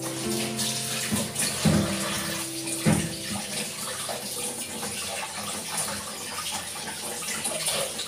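Kitchen tap running into a sink, with a few knocks of things being handled in the water, the loudest about a second and a half and three seconds in.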